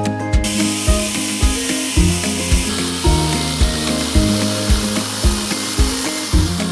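Electric chainsaw cutting through a dry, seasoned log, a steady hiss of cutting that starts about half a second in and stops near the end. Background music with a steady beat plays over it.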